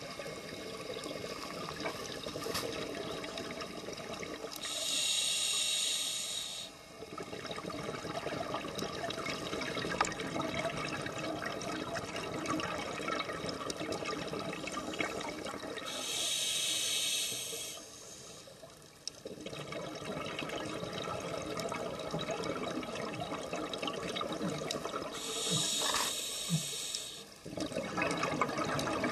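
Scuba diver breathing through a regulator underwater: three loud hissing breaths about ten seconds apart, with a steady rush of bubbles between them.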